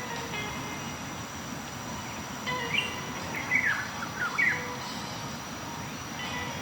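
Waterfall rushing steadily, with a bird giving a few quick chirps midway.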